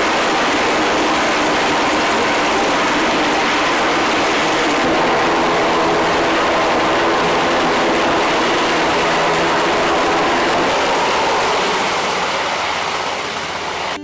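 Navy MH-60 Sea Hawk helicopter running on a carrier deck and lifting off, its turbines and rotor making a loud, steady noise. About a third of the way in, a humming tone joins the noise. The sound fades over the last couple of seconds.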